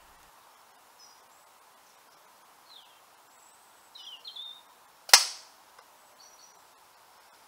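A single shot from an FX Maverick PCP air rifle about five seconds in: one sharp crack with a short tail. Faint bird chirps come before and after it.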